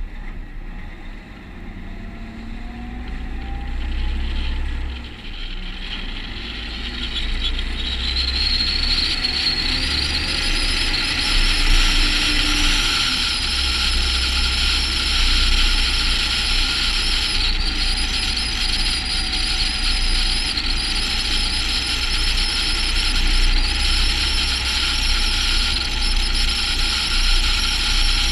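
Volvo FH16 700 truck's 16-litre straight-six engine pulling away and gathering speed: a low steady rumble, with a few rising pitches in the first seconds. About eight seconds in, a loud rushing hiss of wind and tyre noise builds up and then holds steady.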